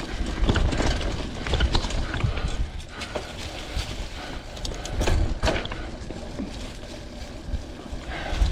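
Vintage Klein Attitude Comp mountain bike riding over rough dirt singletrack, heard from a chest-mounted camera: tyres on dirt and rocks and a rattle of frame and chain, full of small clicks and knocks over a low rumble. There are heavier jolts near the start and about five seconds in, and it goes quieter after about six seconds.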